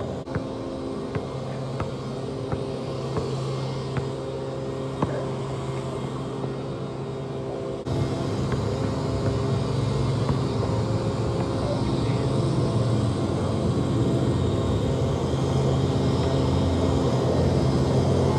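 Basketball bouncing on an asphalt court, sharp bounces about once a second in the first half, over a steady low hum that steps up louder about eight seconds in and keeps rising.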